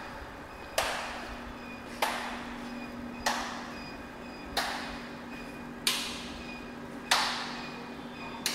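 Sharp taps repeating evenly, about one every 1.3 seconds, each trailing off in a short hiss, over a faint steady hum.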